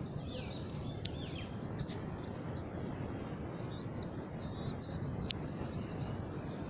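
Small birds chirping: short high calls scattered through, with a quick run of repeated notes about four to five seconds in, over steady background noise.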